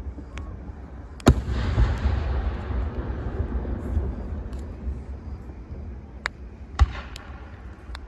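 Fireworks going off: a sharp bang about a second in with a long tail that dies away over a few seconds, a second bang near the end, and a few smaller pops, over a steady low rumble.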